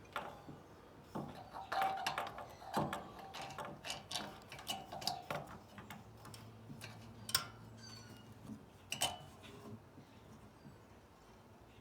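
Irregular small metallic clinks, clicks and light knocks, as of hand tools and small metal parts being handled, busiest in the first half with a couple of sharp clicks later on.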